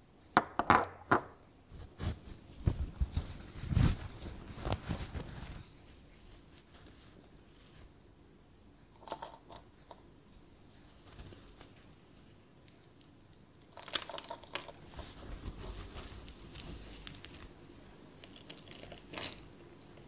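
Small glass items being handled on a table: a glass bottle and glass jars clink and knock in a quick cluster in the first few seconds. Later, wax pieces are dropped by hand into a small glass jar, with bursts of light clinks and rattles and a short glassy ring, a few times.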